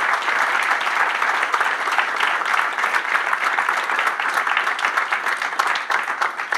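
Audience applauding steadily: many hands clapping at once in a lecture hall.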